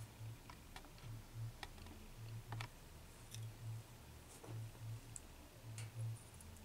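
Faint scattered ticks and clicks of fingers handling a small die-cast metal model airliner, about eight over the stretch, over a low throb that comes in pairs about once a second.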